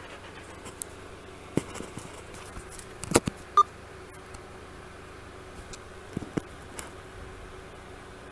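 Scattered light clicks and knocks over a steady low hiss. The loudest cluster comes about three seconds in, followed by a brief short beep-like tone.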